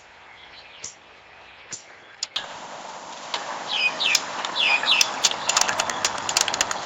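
Bird calls: a few short, sharp chirps about a second apart over a faint hiss. About two and a half seconds in, a louder, busier stretch begins, with looping chirps and a rapid run of clicking calls over a steady hiss.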